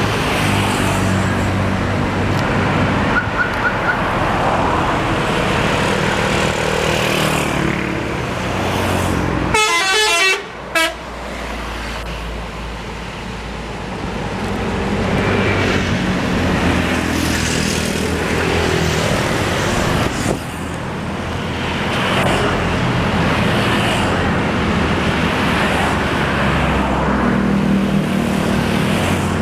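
Tour-bus engines running as the buses pull out. About ten seconds in comes a brief 'telolet' horn, a quick run of alternating musical horn notes that cuts off sharply, followed by one more short blast.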